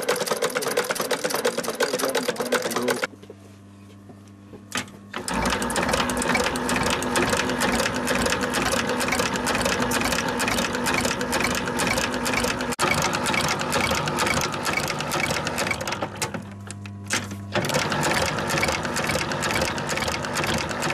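Industrial sewing machines stitching leather and a shoe with rapid strokes. The stitching stops twice, for about two seconds a few seconds in and for about a second near the end, leaving only the electric motor's low hum, then starts again.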